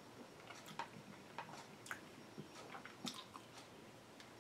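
Faint, irregular clicks and scrapes of a metal spoon against a black plastic microwave-meal tray, with soft chewing.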